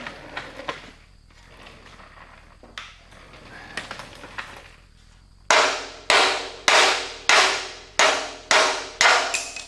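A hammer striking metal about eight times in a steady rhythm, just under two blows a second, each blow ringing briefly. It is beating on a stubborn part at a truck's rear spring shackle, after a few seconds of faint small handling noises.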